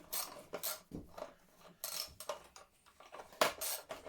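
Hand tools clinking and scraping against metal motorcycle parts as a 10 mm fixing is worked on: an irregular run of short metallic clinks and scrapes.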